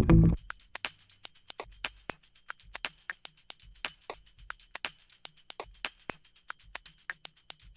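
Background music in a stripped-down passage: a steady tambourine-like jingle with a quick, even percussive tick and little bass. The fuller band comes back in just at the end.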